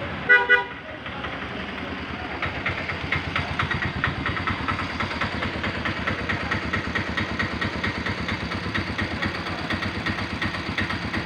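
Two short, loud horn toots, then an engine running with a steady, fast pulsing beat.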